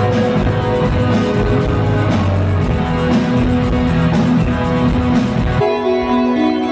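A band playing live, with electric guitar, bass and drums. About five and a half seconds in it cuts to a softer passage of held keyboard or organ chords with guitar.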